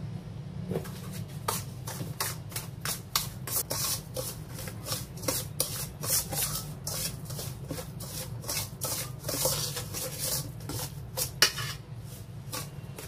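Metal spoon scraping and stirring a thick chili seasoning paste around a stainless steel mixing bowl, in quick, irregular scrapes a few times a second that stop shortly before the end.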